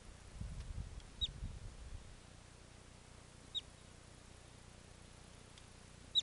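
Bobak (steppe) marmot whistling: three short, sharp, high notes, each dropping quickly in pitch, spaced about two and a half seconds apart. A low rumble sits under the first couple of seconds.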